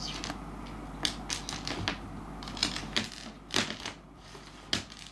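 A dried persimmon seed clicking and skittering on a wooden floor as a cat bats it with its paw: a run of irregular sharp taps, with two louder clicks near the end.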